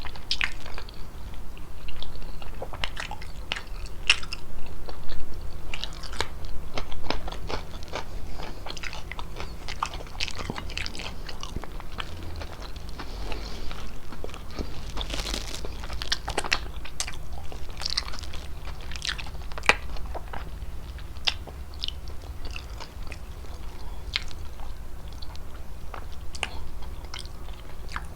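Chewing and biting of chicken fettuccine pasta close to the microphone: a steady run of irregular short, wet mouth clicks and smacks.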